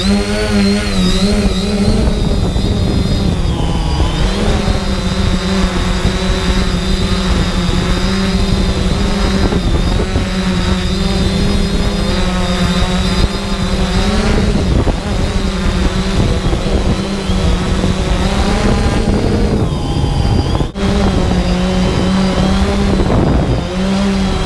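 Quadcopter drone's electric motors and propellers buzzing steadily, heard close up from the drone's own camera, the pitch wavering slightly as it manoeuvres. The sound drops out very briefly a few seconds before the end.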